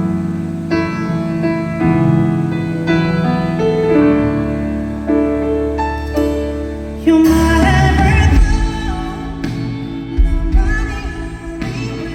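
A live song opens on piano chords. About seven seconds in, drums and the rest of the band come in, and singing begins.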